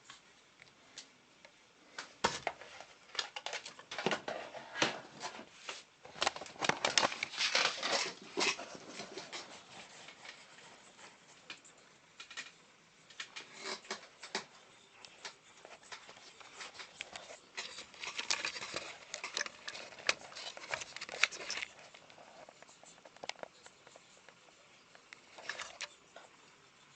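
Irregular clicks, taps and scraping of small hard objects being handled. They come in two busy stretches, from about two to nine seconds in and again from about seventeen to twenty-two seconds in, with only scattered clicks in between.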